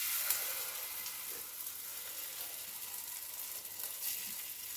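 Hot oil with mustard and sesame seeds sizzling in a non-stick pan as rice-and-lentil batter is poured in. The sizzle starts suddenly and carries on steadily.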